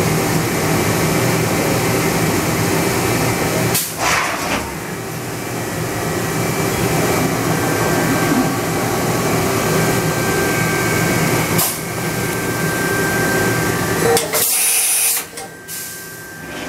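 Mori Seiki NH5000 horizontal machining center going through an automatic tool change: a steady hum of the machine's motors and hydraulics, broken by sharp clacks about four seconds in and again near twelve seconds as the tool-changer door and arm move. A short loud hiss comes about fourteen seconds in, after which the hum drops.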